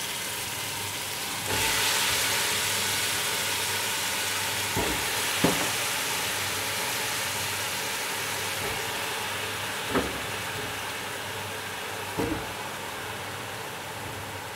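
Peeled, chopped eggplant sizzling as it is added to hot oil and fried masala in an aluminium pressure cooker. The sizzle grows louder about a second and a half in as more pieces go in, then slowly eases, with a few light knocks.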